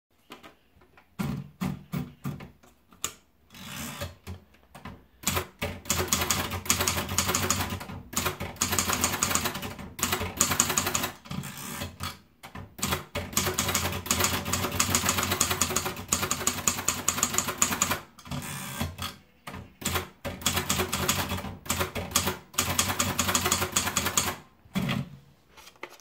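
Torpedo Idool manual portable typewriter: a few separate clicks as the paper is rolled in, then runs of rapid keystrokes with the typebars striking the platen. Short breaks fall between the typed lines as the carriage is returned.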